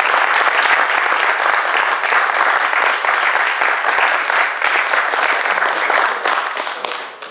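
Audience applauding: dense, steady clapping that starts to thin out near the end.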